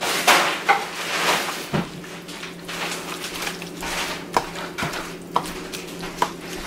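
A metal spoon scrapes and clinks against a stainless steel perforated bowl while stirring a soft mashed eggplant mixture, with several sharp clinks in the second half.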